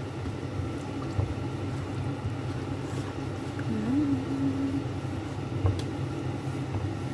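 Steady low mechanical hum of a kitchen appliance under a silicone spatula stirring sauce in a frying pan, with a few light taps of the spatula on the pan. A short hum of a voice rises and holds about four seconds in.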